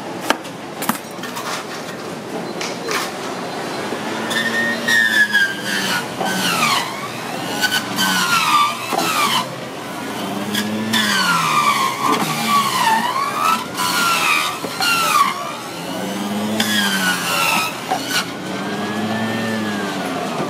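An electric centrifugal juicer motor whines as pieces of white bitter melon are pushed into its chute. Its pitch swoops down under each load and climbs back up, over and over. A few sharp knife clicks on the cutting board come at the start.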